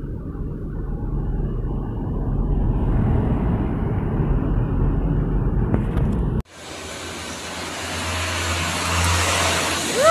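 Truck diesel engines passing: a low engine rumble from a light dump truck, growing as it goes by. About six seconds in, an abrupt cut to a louder, hissier engine sound with a steady low hum from a concrete mixer truck, rising as it approaches.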